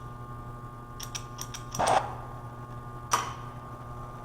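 Acetylene torch being lit: several quick clicks from a flint striker about a second in, then a short loud whoosh as the acetylene catches just before two seconds, and one sharp click a second later.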